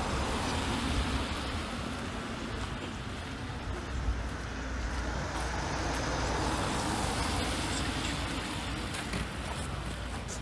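Cars driving past on a wet road, the tyre noise swelling and fading twice.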